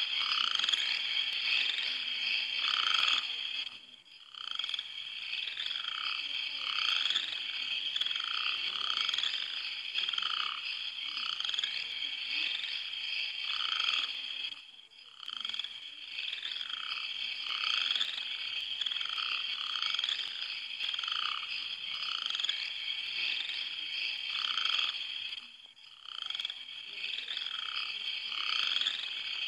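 Night chorus of frogs croaking in short repeated calls, roughly one a second, over a steady high-pitched chirring chorus. The whole chorus dips out briefly three times, about 4, 15 and 25 seconds in.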